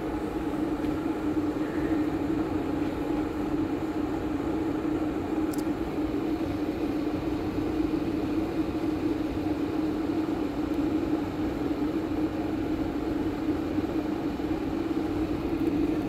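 Electric kettle boiling hard: a steady rushing noise with a constant hum underneath.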